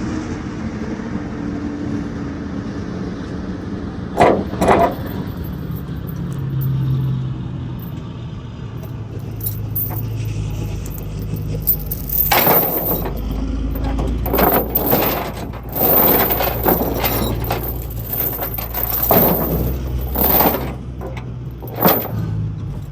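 Securement chains rattling and clanking against metal in several short bursts while a load is chained down, over a steady low engine hum.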